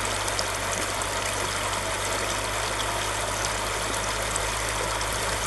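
Steady rushing of river water, with a low steady hum underneath.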